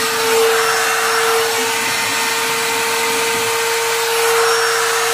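Router spindle on an MPCNC machine running at speed: one steady high whine over a loud rush of air and hiss. The end mill has just snapped in the aluminum cut.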